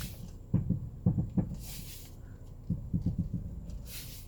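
Honda CR-V front suspension clunking as the steering wheel is turned: several clusters of low, dull knocks, with a few short hisses between them. The fault is one that mechanics put down to the shock absorbers or to their top mounts.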